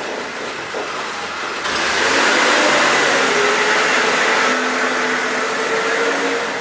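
A motor running, which speeds up and gets louder about two seconds in and holds there with a steady whine, then drops back near the end.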